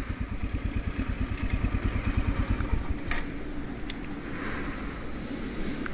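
Royal Enfield Himalayan's single-cylinder engine running at idle with an even, fast beat, growing quieter about halfway through.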